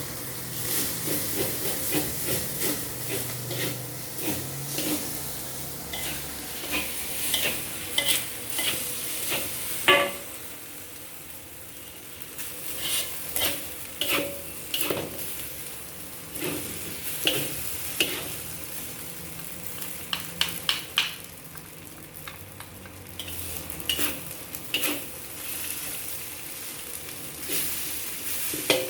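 Fried rice being stir-fried in a hot pan: a steady sizzle with irregular scrapes and knocks of a cooking utensil against the pan, one louder knock about ten seconds in.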